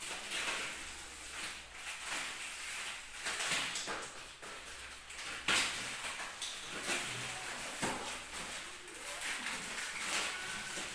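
A cardboard box and its thick packing tape being worked open by hand: repeated scraping, rustling and tearing, with one sharp knock about five and a half seconds in.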